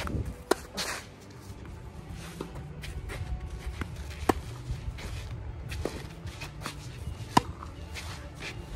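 Tennis rally between two players: sharp pops of racket on ball and ball bounces, a stroke every second and a half or so, with shuffling footsteps on the court between shots.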